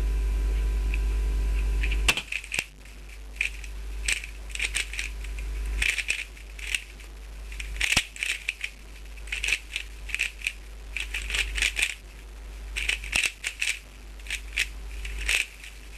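The rapid, irregular plastic clicking and clacking of a Dayan Gu Hong 3x3 speedcube being turned fast during a timed solve, coming after a steady hum that lasts about two seconds.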